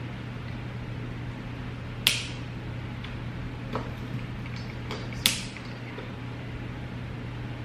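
Sharp clicks of ring light stand parts being fitted together: two loud ones about two and five seconds in, with a few fainter ticks between, over a steady low hum.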